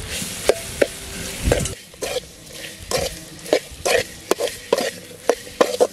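Ladle or spoon stirring mashed yam into a tempering of fried onions and spices in a hot pan, scraping in short strokes about two or three a second. A frying sizzle underneath drops away about two seconds in.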